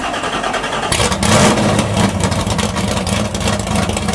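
Car engine running loudly with a rapid pulsing exhaust note, getting louder about a second in.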